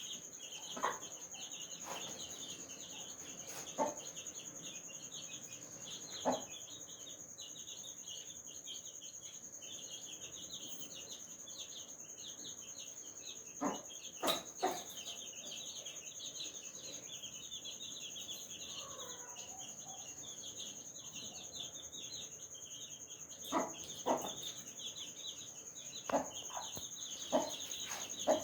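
Baby chicks peeping busily and continuously, with a mother hen giving short clucks every few seconds, in small clusters about a third of the way in and again near the end. A steady high insect drone runs underneath.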